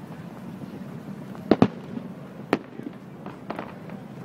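Aerial fireworks shells bursting at a distance: a quick double bang about a second and a half in, another a second later, then fainter pops.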